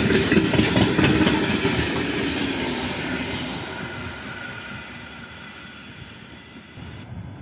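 The last open-top gondola wagons of a long freight train roll past on the rails with a wheel rumble and some clatter. The sound fades steadily as the end of the train recedes, then cuts to quieter background shortly before the end.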